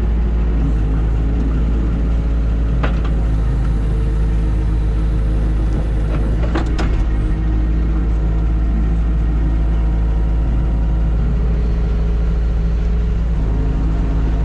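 New Holland Kobelco E50.2 mini excavator's engine running steadily while the arm and bucket are worked, heard from the cab. A few sharp knocks come about three and seven seconds in.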